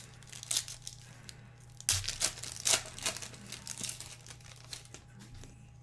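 Trading card pack wrapper crinkling and tearing as a pack is opened, in a few short rustling bursts, the loudest about two to three seconds in.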